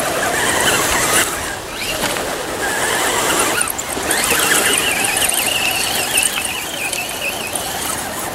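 Electric motors and gearboxes of RC rock crawlers whining as they climb a rocky slope, the pitch wavering up and down with the throttle, over a steady hiss.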